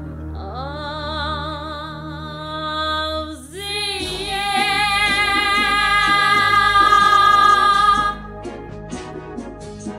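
Woman singing long held notes with vibrato over backing music: one sustained note, then a slide up to a higher, louder held note that cuts off about eight seconds in.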